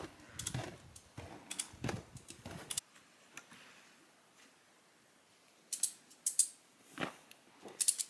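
Footsteps crunching in fresh snow: irregular short crunches through the first three seconds and again near the end, with a quiet pause between.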